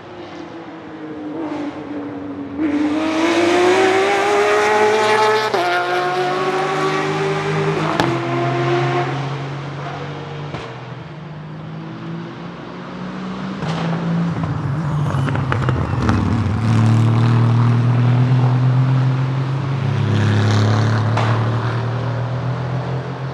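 Aston Martin Vantage GT3 race cars' twin-turbo V8 engines accelerating hard at full throttle. The pitch climbs and drops with quick upshifts, three in a row in the first half, and another car pulls through its gears loudly in the second half.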